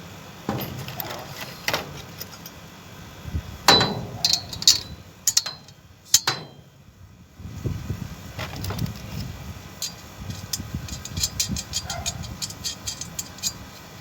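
Satellite dish mounting parts being handled and fitted together by hand: knocks and clinks, with a cluster of sharp clanks about four to six seconds in, then a run of quick light clicks near the end.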